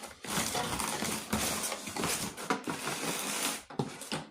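Rustling and clicking of packaging and small parts being handled as a boxed LED motion-sensor security light is unpacked, stopping near the end.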